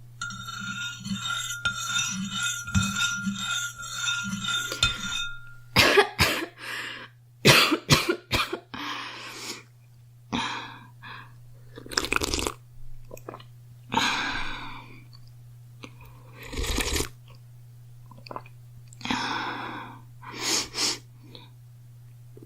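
A girl coughing in repeated bouts, some single coughs and some quick runs of several, with pauses between. For the first five seconds, before the coughing starts, a steady ringing tone pulses about twice a second, over a low hum.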